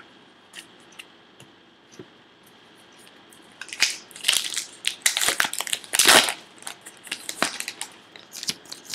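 Foil wrapper of a baseball card pack crinkling as it is torn open and pulled off the cards. A few faint clicks come first, then about four seconds in a loud burst of crackling runs for several seconds.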